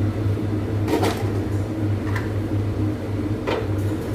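A steady low mechanical hum, with a few short knocks about one, two and three and a half seconds in.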